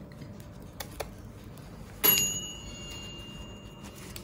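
A metal cream horn mould clinks against the metal baking tray as the sugared pastry cone is set down. It gives one sharp metallic ring about two seconds in that fades over nearly two seconds, after a couple of faint ticks.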